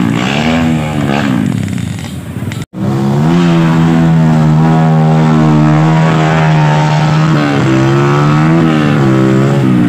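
Dirt bike engine revving while climbing a muddy hill, its pitch wavering up and down. After a brief break it holds a steady high pitch for several seconds, then drops and rises again near the end.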